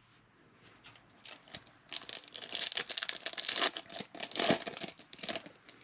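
Foil wrapper of a 2020 Bowman baseball card pack being torn open and crinkled by hand: dense crackling that starts about a second in and runs for several seconds.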